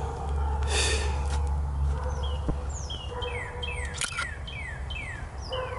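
A wild bird calling a rapid series of short, falling chirps, about two a second, over low wind rumble on the microphone.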